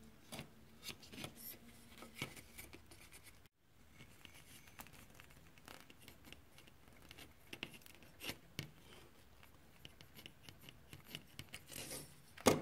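Gloved hands handling a graphics card: small plastic clicks, scrapes and glove rubbing as the heatsink shroud is lifted away and the fan cable's plug is worked out of its board header, with one sharp click just before the end.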